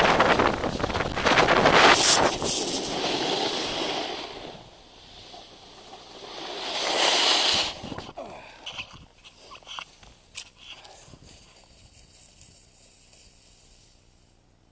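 Skier's run: wind rushing over the microphone and skis hissing on snow, easing off after about four seconds, swelling again near the middle, then a few scattered knocks as it settles to quiet.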